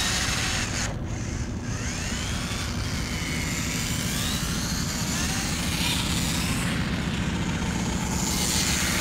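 RC rock crawler's Castle 2850kv brushless motor on a Mamba X ESC, whining as the car drives, its pitch rising and falling several times as the throttle is worked.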